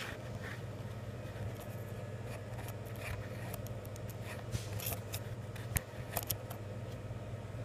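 Steady low hum of a shop's background with scattered faint clicks and short rustles from packs of toilet paper being handled and stacked; the sharpest click comes a little before six seconds in.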